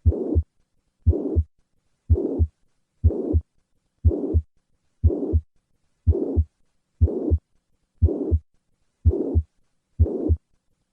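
Heart sounds at about one beat a second. Each beat has a low first and second heart sound, and a blowing murmur of even loudness fills the whole gap between them. This is the holosystolic, plateau-shaped murmur of mitral regurgitation, heard at the cardiac apex.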